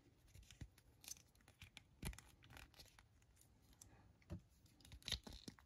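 Near silence, with a few faint, scattered clicks and taps from a plastic action figure and its parts being handled.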